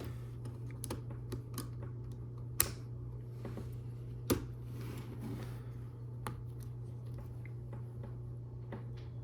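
Plastic Lego Technic pieces clicking and rattling as they are handled and pressed together, with two sharper clicks about two and a half and just over four seconds in, over a steady low hum.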